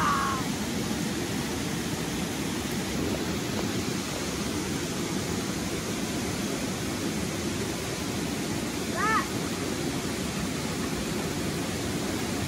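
Steady rush of a shallow stream running over rocks and a small cascade.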